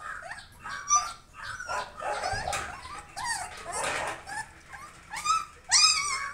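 A litter of 22-day-old Kombai puppies whimpering and yelping, with many short, high calls overlapping one another. The loudest cries come near the end.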